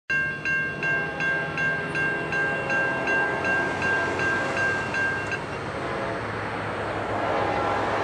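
Railroad grade-crossing bell striking steadily, about two and a half strikes a second, then falling silent a little past halfway. Near the end the horn of the approaching Amtrak P42DC locomotive begins sounding, quieter than the bell.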